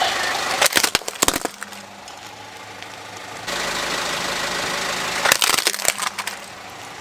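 A car tyre crushing plastic toys: a burst of sharp cracks and snaps about half a second in as a plastic goose toy gives way, then a second burst about five seconds in as a toy sports car is flattened. A car engine runs steadily underneath.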